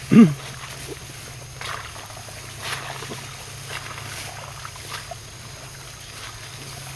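Footsteps and rustling through ferns and swamp undergrowth at a walking pace, over a steady low hum. A brief sound falling in pitch, like a grunt or short call, is the loudest thing, just at the start.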